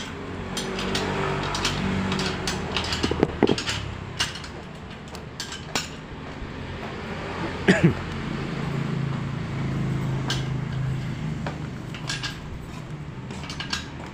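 Small metal parts of a Vertex A3 mountain-bike trigger shifter clicking and clinking as it is taken apart with a screwdriver and by hand, with a brief squeak about eight seconds in. A low rumble runs underneath and swells twice.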